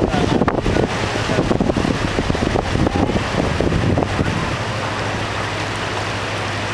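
Shallow stream rushing over gravel, with wind buffeting the microphone for the first few seconds before it settles. A low, steady hum runs underneath.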